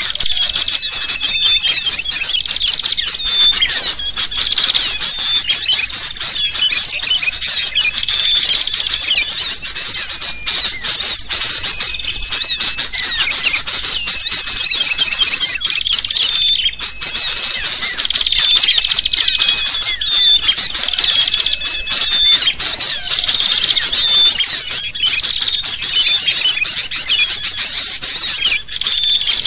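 Bird-lure recording of agitated sooty-headed bulbul calls mixed with a dense chorus of small birds chirping and squeaking, with no pause. A thin whistle note recurs every few seconds through the calls. The track is meant to draw wild birds in.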